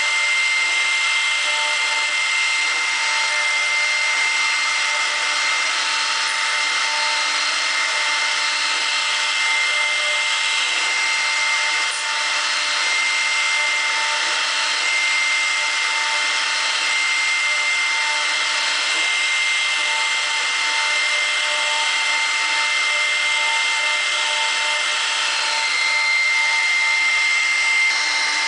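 CNC router's 1.7 kW, 18,000 rpm spindle with a 10 mm cutter milling a PVC block: a steady high-pitched whine over the hiss of the cutting, running evenly without a break.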